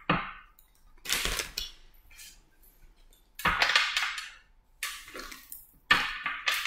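Tarot cards being handled: shuffled in the hands and a card laid down on the table, heard as about five short papery slaps and swishes with pauses between.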